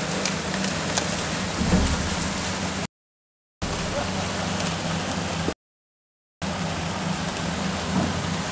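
Twin 90 hp outboard motors running at speed over the hiss and rush of the churning wake, with a few sharp knocks in the first two seconds. The sound cuts out to dead silence twice for under a second.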